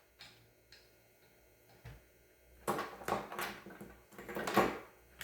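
Sharpening stone on a Wicked Edge guided sharpener scraping along the edge of a VG10 chef knife in edge-leading strokes with the 800 grit stone. A few faint ticks come first, then a run of hissing scrapes starting just under three seconds in.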